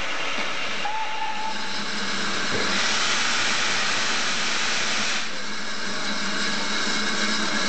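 Steam locomotive hissing steam, with a louder rush of steam for about two seconds in the middle. A short whistle sounds about a second in, and a steady low hum runs underneath.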